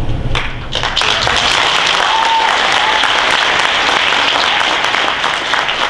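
Audience applauding, a dense clapping that starts about half a second in and holds steady.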